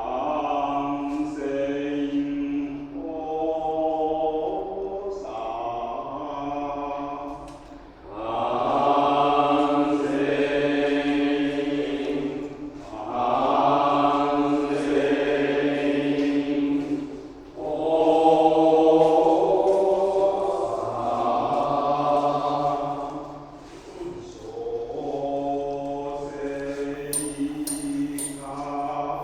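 Buddhist monks chanting together in long held notes, in phrases of a few seconds that swell louder in the middle. A few brief high ticks sound near the end.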